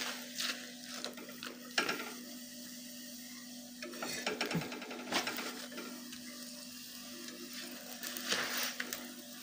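Paratha frying on a black iron pan over a gas burner, with a light sizzle. Metal tongs click against the pan a few times as the flatbread is lifted and turned. A steady low hum runs underneath.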